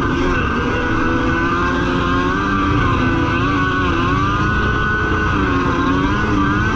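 Yamaha FX1 stand-up jet ski's two-stroke engine running under way, its pitch rising and falling as the throttle is worked, with a dip about four seconds in.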